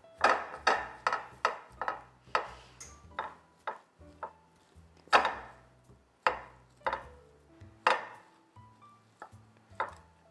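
Wooden spatula knocking and scraping against a glass baking dish while mixing rice, broccoli and kale: a run of sharp taps, about two a second at first, then more spaced out, the loudest about halfway through.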